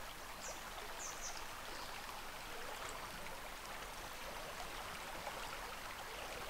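Blackwood River flowing past, a steady rush of water; the river is running high, having risen overnight. A few short, faint high chirps sound early on and near the end.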